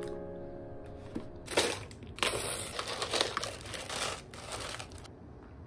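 Thin plastic bag crinkling and rustling in short crackly bursts as it is handled and squeezed out over a bowl.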